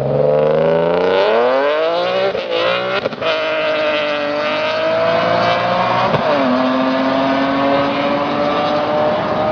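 Six-cylinder sports car engine accelerating hard through the gears. The pitch climbs quickly, breaks at an upshift about three seconds in, then climbs more slowly in the next gear until another upshift about six seconds in.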